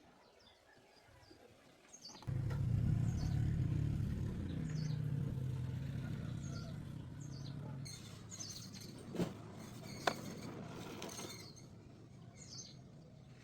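A small car engine starts abruptly about two seconds in and runs steadily, its sound slowly fading in the later part, with two sharp clicks near the end. Birds chirp throughout.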